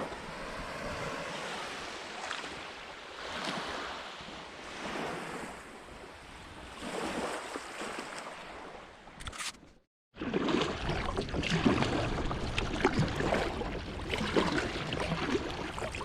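Sea water washing and lapping in gentle swells, rising and falling every second or two. After a brief dropout about ten seconds in, it returns as louder, choppier water with crackling splashes and wind rumbling on the microphone.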